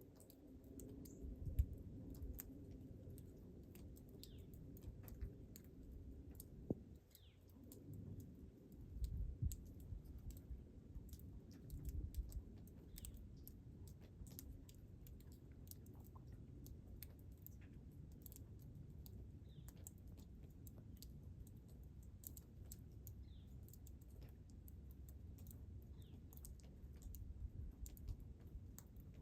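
Faint low rumble with many scattered light clicks and a short, faint chirp every few seconds.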